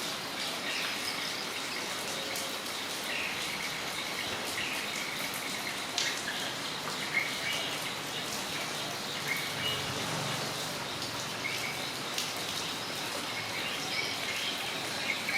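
Steady rain falling on a yard, with occasional close drops striking, and birds chirping briefly now and then throughout.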